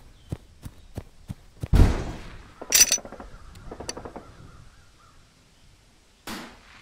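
Dubbed battle sound effects: a steady ticking about three times a second stops, then a sudden loud boom with a long rumble, followed by harsh crow-like caws, and another short sharp blast near the end.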